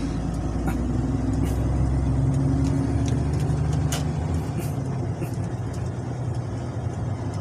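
Heavy truck's diesel engine and road noise heard from inside the cab while cruising along a highway: a steady low drone whose engine tones shift slightly in pitch a couple of seconds in.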